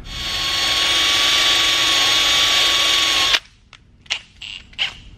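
Milwaukee cordless drill spinning a wire brush, cleaning paint off an aluminium fitting before welding. It spins up, runs steadily with a whine over a hiss for about three and a half seconds, then stops abruptly, followed by a few light knocks as the tool is handled.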